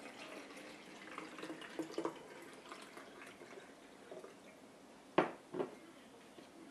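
Water poured from a glass measuring cup into a plastic spray bottle, trickling and splashing into the narrow neck as the bottle fills. Near the end come two sharp knocks, about half a second apart, as the glass cup is set down on the countertop.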